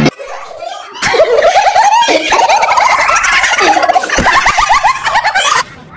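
Children laughing hard: a long run of quick, high-pitched giggles that starts about a second in and stops shortly before the end.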